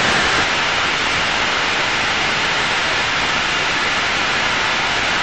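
Steady cockpit noise of an Aero L-39 Albatros jet in flight, an even hiss at constant level with no tone or break standing out.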